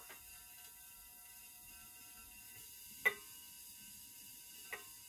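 Faint steady hum with a few thin tones from a running plasma lamp, broken by two sharp taps, one about three seconds in and a softer one near the end, as a glass gas ampule is touched against the lamp's dome.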